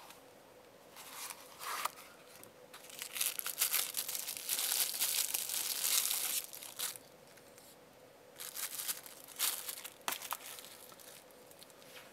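Clear plastic bag crinkling and rustling as a folding knife is pulled out of it, in short bursts at first, then a long loud stretch in the middle, and a few more bursts of handling near the end.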